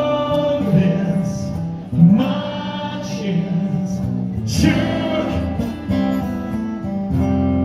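Pop music: a sung vocal line with long held notes over guitar.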